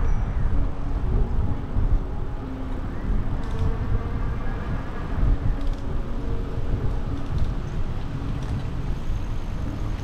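Wind buffeting the microphone of a camera carried on a moving bicycle, a steady fluttering rumble, with faint road and traffic hum underneath.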